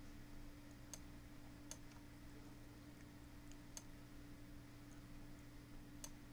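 Four faint computer mouse clicks, spaced irregularly, over a steady low electrical hum.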